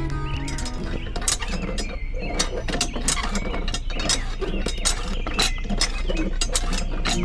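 Small hard parts clicking and rattling in a rapid, irregular run, several clicks a second.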